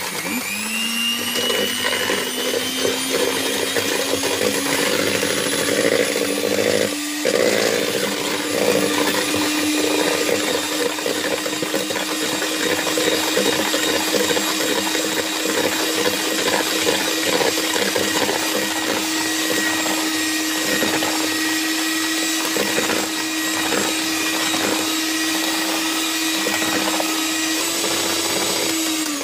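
Handheld electric mixer beating eggs and sugar in a plastic bowl. The motor whine rises as it starts up, runs steadily with a brief dip about seven seconds in, and winds down at the end.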